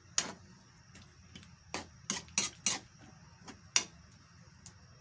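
Cooking ladle clinking and knocking against the side of a metal pan while stirring a coconut-milk stew: irregular sharp clinks, bunched together around two to three seconds in.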